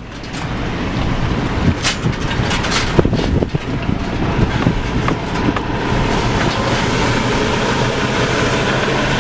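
Vehicle driving slowly over rough, potholed ground, with a steady running noise and several sharp knocks and rattles in the first few seconds.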